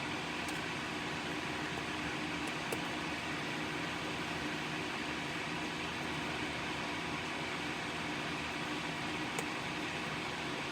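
Small fume-extractor fan running steadily at the soldering bench, with a few faint clicks.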